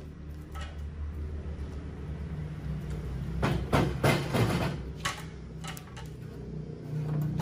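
Sharp metallic knocks and clicks as a homemade steel C-clamp and a square steel tube are handled and tightened on a steel table top, bunched together around the middle, with a few single knocks later. A steady low hum sits underneath.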